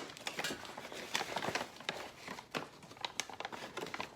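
Paper flour bag crinkling, with a measuring cup scraping and tapping, as all-purpose flour is scooped out by the cup: an irregular run of rustles and clicks.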